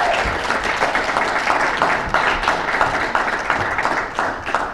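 Small audience applauding: dense, steady hand clapping.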